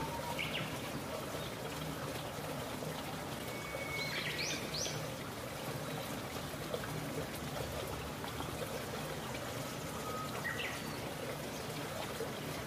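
Steady noise of running, trickling water, with a bird giving short rising chirps three times: just after the start, about four seconds in, and near ten seconds.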